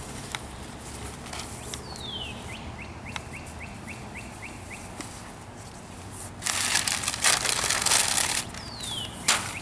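A songbird sings twice, each time a falling whistle followed by a quick trill of short notes. About six and a half seconds in, a couple of seconds of loud rustling and crinkling from sheet material being handled.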